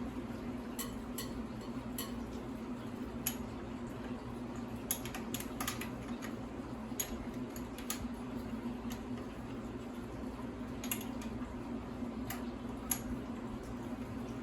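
Scattered light metallic clicks and clinks from hand tools and motorcycle parts being handled during disassembly, over a steady low hum.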